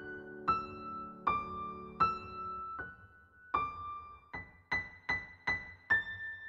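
Background music: a slow piano melody of single notes, each struck and left to ring and fade, about ten notes.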